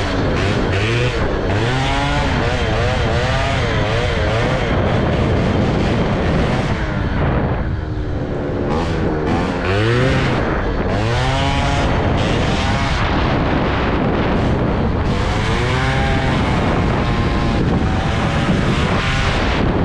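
Two-stroke moped engine with a Polini kit and BOOST cylinder head, ridden hard: the revs rise and fall over and over, wavering quickly a few seconds in and climbing steeply several times later, over wind and road noise.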